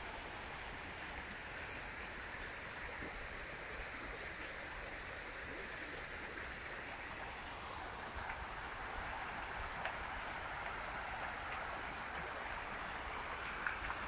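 Steady rush of water from a waterfall, an even hiss that grows slightly louder about halfway through.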